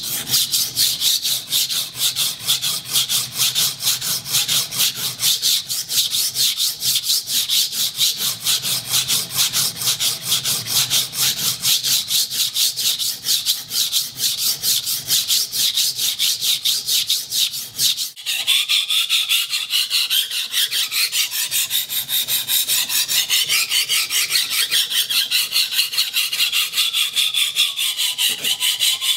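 Sugimoto Japanese kitchen knife blade stroked rapidly back and forth on a sharpening stone, grinding down the whole edge line to even out the bevel geometry: a steady scraping rhythm of a few strokes a second. The scrape changes in tone about two-thirds of the way through.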